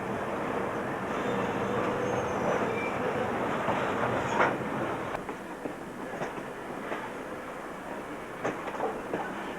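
Passenger train running on the rails: a steady rumble with irregular sharp clicks and knocks from the wheels over the track. The sound eases a little after about five seconds.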